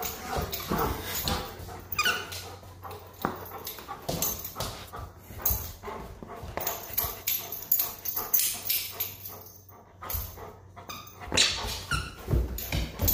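A dog whimpering and giving short yips, with irregular sharp clicks and taps as it moves about on a hard floor.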